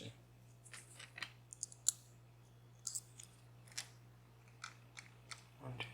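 Sparse light clicks and taps from small parts of a disassembled DOM Plura lock, its shell and pins, being handled, about a dozen in all and irregularly spaced.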